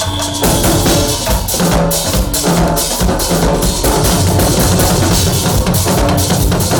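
Loud, upbeat music driven by a drum kit, with bass drum and snare keeping a steady beat over a bass line.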